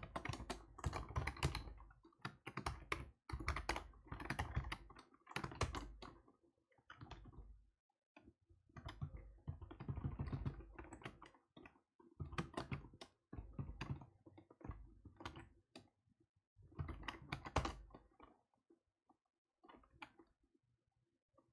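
Typing on a computer keyboard in quick runs of keystrokes with short pauses between them, thinning out to a few scattered key clicks near the end.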